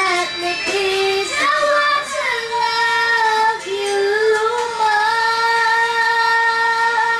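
A high female voice singing a melody. The notes move quickly at first, then settle into long held notes for the second half.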